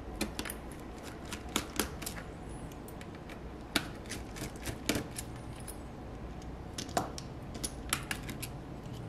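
Irregular small clicks and taps of a precision screwdriver working out the two small screws from the metal back of a TRS-80 PC-3 pocket computer.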